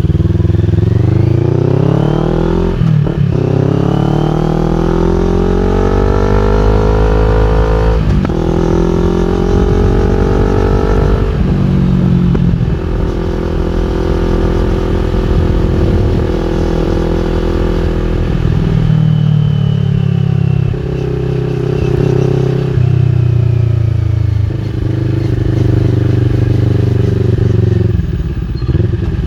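CFMOTO NK400's parallel-twin engine through an Akrapovic full exhaust system, accelerating through the gears: the pitch rises and drops sharply at upshifts about 3 and 8 seconds in. After that it holds a steadier cruise, with a few brief throttle changes in the second half.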